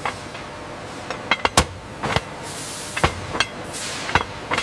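Factory ambience: irregular metallic knocks and clinks, about ten in four and a half seconds, over a steady background noise, with two short hisses about two and a half and four seconds in.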